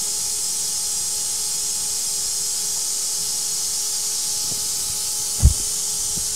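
Steady hiss with two faint steady hum tones. A single dull metal thump about five and a half seconds in, with a few light knocks, as the block is set and clamped in the Lang Makro-Grip machine vise.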